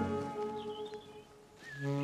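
Orchestral background score: held notes fade away in the first second, birds chirp in the quiet gap, and the music comes back in near the end.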